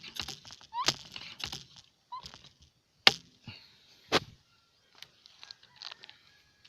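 Sharp Ace multi-pump pneumatic air rifle being pumped: a few pump strokes in the first two seconds, each with a short rising squeak of compressed air. Then two sharp clacks about a second apart, the first the louder.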